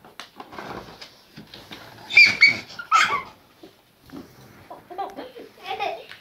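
Clear plastic packaging and tape crackling and rustling as a cardboard doll box is torn open, with two short, loud, high-pitched cries about two and three seconds in.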